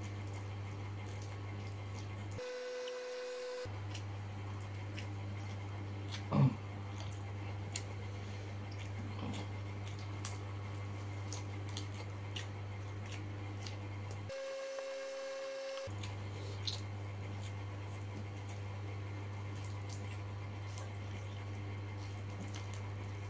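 Eating by hand: soft chewing and lip-smacking clicks from a man eating fried chicken and rice, over a steady low hum. One louder short sound, falling in pitch, comes about six seconds in, and the hum briefly drops out twice.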